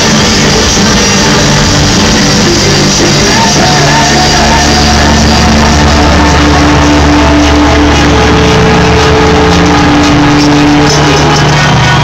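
Loud live rock band with electronic synth parts playing in an arena, heard from among the audience, with a steady heavy bass and long held notes.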